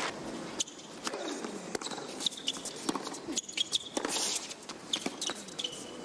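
Tennis shoes squeaking on a hard court, with a ball bouncing off the court in sharp knocks. A steady murmur from the arena crowd runs underneath.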